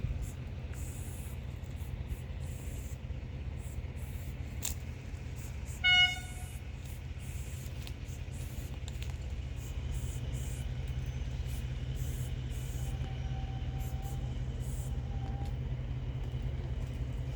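Steady low train rumble in a rail yard, with one short, loud horn toot about six seconds in.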